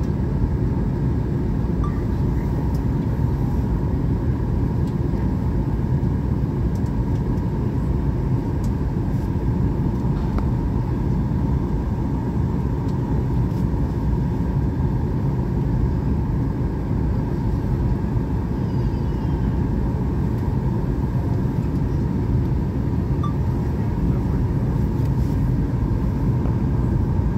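Steady cabin noise of a Boeing airliner in descent: a constant low rumble of engines and rushing air, with a faint steady hum above it.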